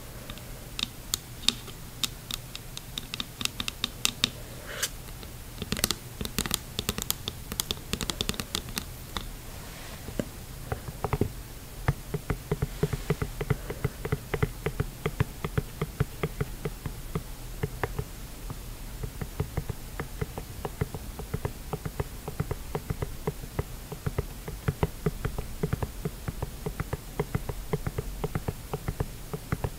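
Long fingernails tapping on a clear diving mask. For the first third the clicks are sharp and scattered. After that comes a fast, even run of tapping on the mask's nose pocket.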